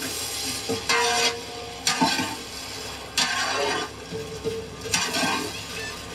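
Large ladle stirring and scraping through an okra and egg fry in a big metal cooking pot, about one stroke a second, over a steady frying sizzle.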